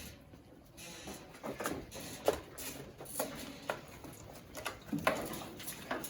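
Scattered sharp taps and scuffling as a goat is moved about and handled: hooves and feet on the ground.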